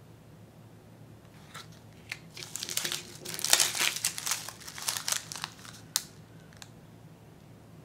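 Small thin plastic bags of candy chocolate balls crinkling as they are handled, sparse at first, then a dense run of crinkles through the middle, with one short sharp click near the end.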